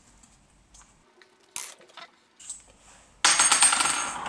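A few faint clicks, then, about three seconds in, a loud metal clatter with a rapid rattle and a ringing tone, lasting about a second, as metal parts at a small bench vise holding an RCA plug are handled.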